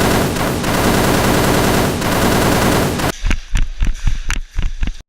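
Sustained rapid automatic gunfire for about three seconds, then a string of separate shots in quick succession over the last two seconds, cutting off suddenly.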